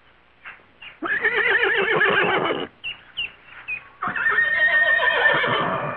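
Horse whinnying twice. Each call is long and loud with a wavering, trembling pitch: the first comes about a second in, and the second starts at about four seconds and is still going at the end.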